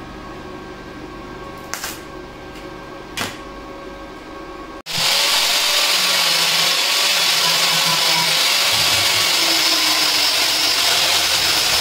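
A hand-held angle grinder working the welded steel-nut block, starting abruptly about five seconds in: a loud, steady, hissing grind that holds to the end. Before it there is a quieter steady hum with two sharp clicks, where the stick welder works on the nuts.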